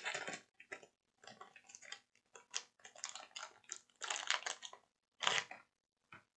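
Paper carrier tape of SMD components crinkling and crackling as it is handled, in irregular bursts with short gaps.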